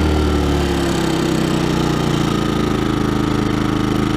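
Cromtech Outback 2400W inverter generator's engine running steadily, its pitch sinking slightly over the few seconds.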